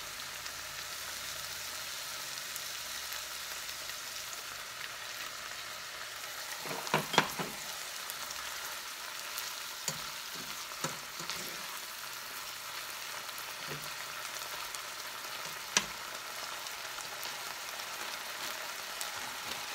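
Ground chicken, onions and carrots sizzling steadily in a nonstick frying pan, with soy and teriyaki sauce just added. A slotted spatula stirs the food and scrapes the pan, with a few sharp knocks against the pan, the loudest about seven seconds in and again about sixteen seconds in.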